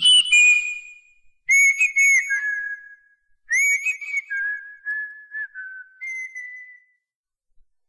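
A whistled tune: short phrases of clear, high notes, each opening with quick upward flicks and settling onto held notes that step downward, stopping about seven seconds in.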